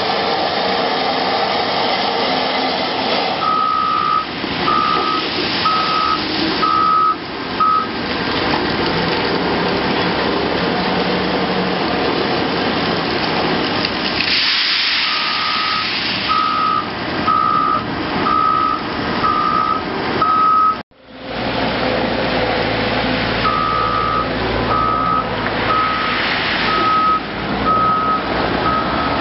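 Heavy Caterpillar earthmoving diesels, a Cat 980K wheel loader and a Cat 740B articulated hauler, running under load, with a reversing alarm beeping about once a second in three runs of several seconds. About halfway through there is a rush of gravel pouring from the loader's bucket into the hauler's body. The sound drops out for an instant about two-thirds through and comes back with a deeper engine hum.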